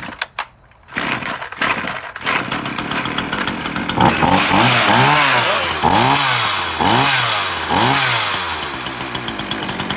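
Titan petrol two-stroke chainsaw starting and running, then revved up and down about six times in a row from about four seconds in before easing back, running properly on its freshly fitted chain.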